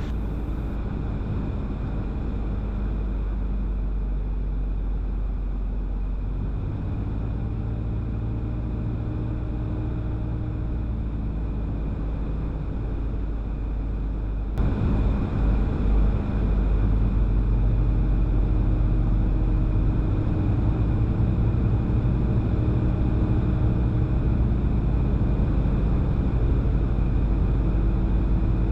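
Cessna 177RG Cardinal's 200 hp four-cylinder Lycoming engine and propeller running steadily, heard inside the cockpit on the landing approach. About halfway through, the sound changes suddenly and gets louder, with a few brief bumps, then runs on steadily.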